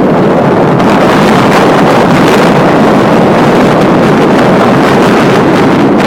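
Strong wind buffeting the microphone: a loud, steady rush of wind noise.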